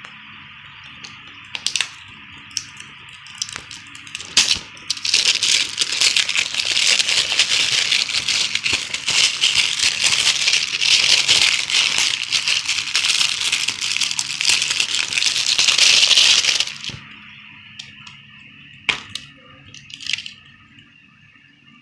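Handling of Blu-ray packaging. A few sharp clicks and taps come first, then about twelve seconds of dense crinkling and rustling, then more scattered clicks, all over a faint steady hum.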